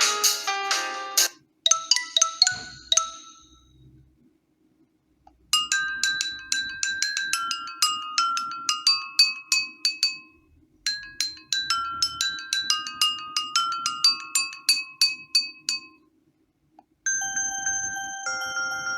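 Preset ringtones of a ZTE Blade A3 2019 phone previewed one after another. One tune stops about a second and a half in and a short tinkling phrase follows. After a pause a bright, marimba-like melody of struck notes plays twice over, and another ringtone starts near the end.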